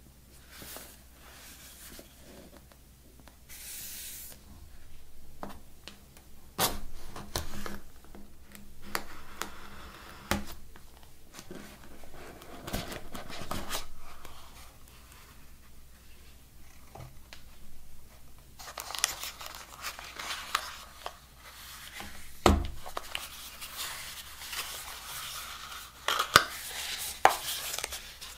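Cardboard packaging of a Samsung Galaxy Buds Live retail box being handled and opened: the inner box slides out of its paper sleeve, and cardboard rubs and scrapes with scattered taps and clicks. A longer stretch of scraping starts a little after halfway, and a few sharper taps come near the end.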